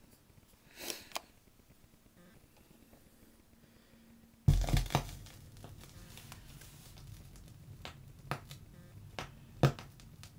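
Stylus set down on a spinning 45 rpm vinyl single with a sudden thump about four and a half seconds in, followed by the crackle and scattered pops of the lead-in groove over a low rumble.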